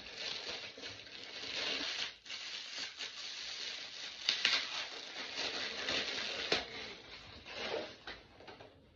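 Thin plastic packaging crinkling and rustling as it is handled and pulled open to unwrap a small purse, with louder crackles about four and a half and six and a half seconds in, dying away near the end.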